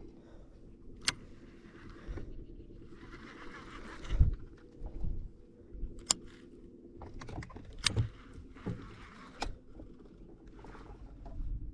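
Knocks, clicks and splashes of water around a small fishing boat, over a steady low hum.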